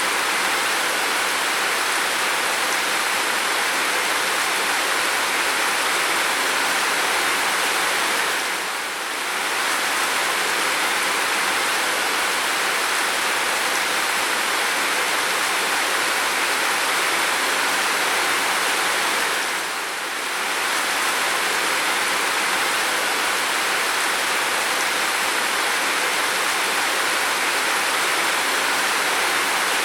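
Steady heavy rain making a dense, even hiss, with a brief dip in level twice, about eleven seconds apart.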